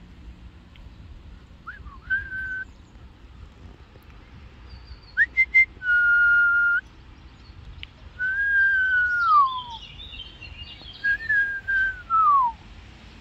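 A person whistling a series of short phrases: a few held notes at one pitch, and two long notes that slide downward near the end.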